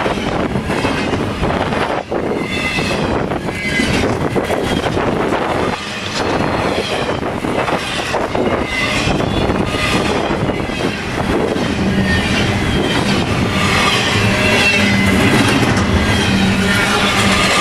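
Double-stack intermodal cars of a long freight train passing at track speed: continuous rolling rumble with wheels clicking over the rail joints and a wavering high-pitched squeal from the wheels. A steady low hum joins about twelve seconds in.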